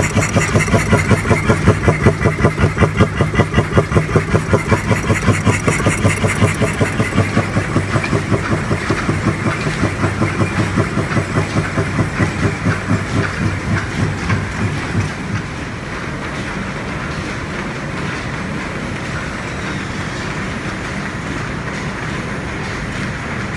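Old stationary engine chugging in an even rhythm of about three beats a second. The beats fade away about fifteen seconds in, leaving a steady hum of the lineshaft and its flat belts running.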